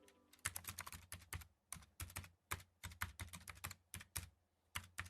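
Faint, irregular light clicking, several sharp clicks a second with short pauses between runs.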